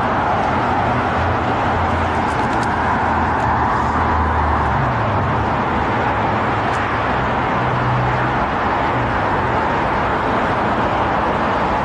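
Steady outdoor rushing noise with a low engine rumble that wavers slightly in pitch, typical of city traffic.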